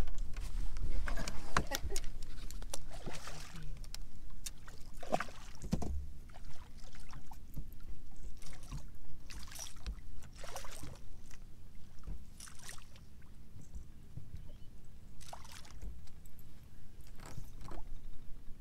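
Handling noises on a bass boat's front deck: scattered light knocks and rustles, over a low steady rumble.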